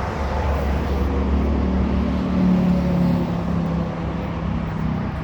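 Road traffic noise with a steady low rumble, and a vehicle engine humming in from about a second in and fading near the end.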